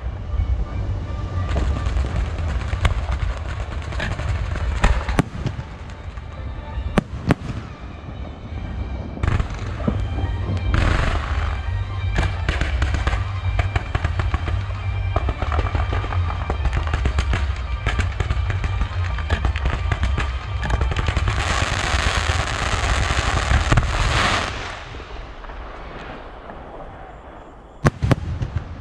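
Fireworks display: a steady run of shell bursts, with repeated sharp bangs and cracks over a low rumble. About three-quarters of the way through comes a dense stretch of crackling, then a short lull before more sharp bangs near the end.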